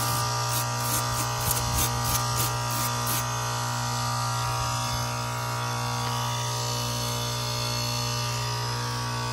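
Frozen-up Rheem heat pump outdoor unit running with a steady electrical buzzing hum, with a few light ticks in the first three seconds.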